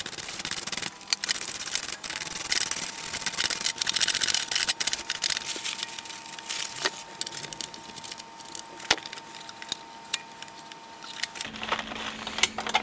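Cloth and a small tool rubbing and scraping over the metal levers of a BSR UA15SS record changer's tone arm mechanism as old gunk is cleaned off, with many small metallic clicks and rattles from the moving parts.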